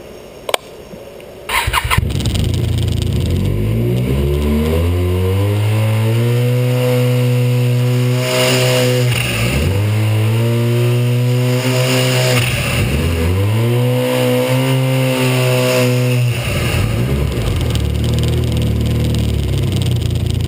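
Arctic Cat 1100 turbo three-cylinder four-stroke snowmobile engine starting about a second and a half in, then revved up three times and let back down to idle. Each time the throttle closes, the boost recirculation valve releases a steady rush of pressure from the turbo intake.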